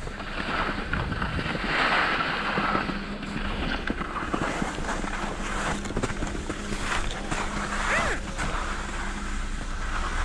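Wind buffeting the microphone, with skis scraping and shuffling on packed snow and a faint steady hum underneath.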